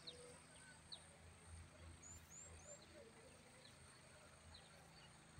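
Near silence: faint outdoor ambience over a low rumble, with scattered short high bird chirps, including three quick rising chirps about two seconds in.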